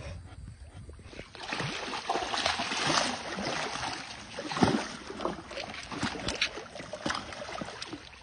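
Pool water splashing and sloshing as a jaguar and a lion wade and scuffle in the shallows, with one loud splash about four and a half seconds in.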